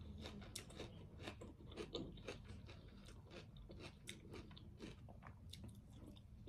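A person chewing crunchy food: a run of small, crisp crunches at an irregular pace.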